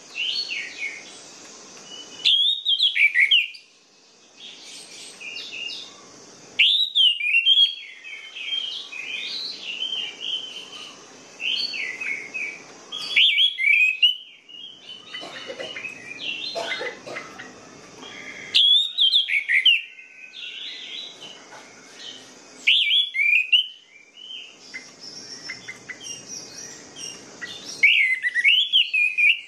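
Orange-headed thrush singing: loud, rich whistled phrases about every four to six seconds, with a quieter, continuous run of chattering warbles between them.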